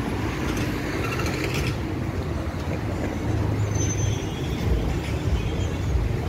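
City street ambience beside a busy boulevard: a steady rumble of passing road traffic, with a brief louder rush about a second in.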